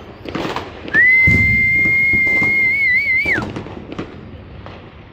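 A loud, high, steady whistle starts about a second in and holds for over two seconds, warbling near the end before dropping off. Scattered gunshot and firecracker pops sound around it.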